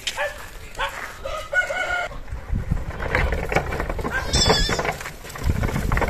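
Farmyard animal calls: a rooster crowing about a second and a half in, among short calls from goats and chickens, with a high wavering bird chirp near the end.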